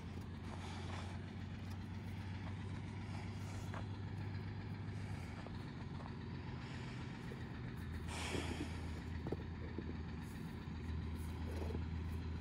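Steady low engine hum, like a vehicle running some way off, with a few faint scuffs and knocks from horses moving on dirt.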